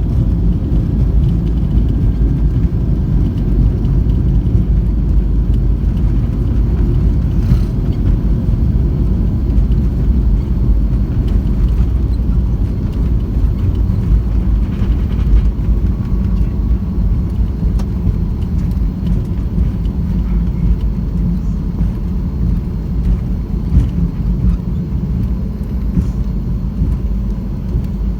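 Steady low rumble inside the cabin of a Boeing 737 MAX rolling on the ground after landing.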